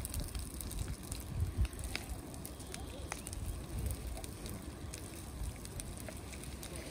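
Wood fire crackling along the base of a smoking, turf-covered tar-burning pile, with scattered sharp pops over a low rumble.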